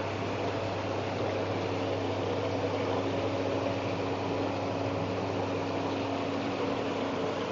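Whirlpool bathtub pump motor running steadily: a constant hum over an even hiss, with no change in speed.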